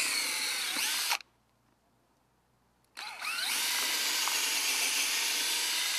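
Cordless drill boring a 1/4-inch pilot hole into a pressure-treated 2x12 board. The motor whine stops about a second in, and after a short pause it starts again about three seconds in and keeps running.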